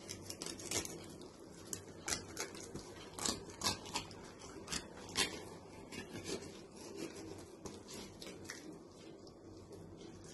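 Kitchen knife cutting through a pink salmon along its backbone and scraping on the plastic cutting board: irregular short scraping strokes, thickest in the first five seconds and fainter later.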